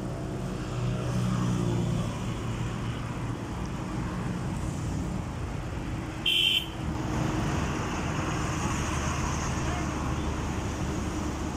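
Sany SY215C excavator's diesel engine running as the machine is driven off a trailer, louder for a second or so near the start. About halfway through comes a single short, high beep.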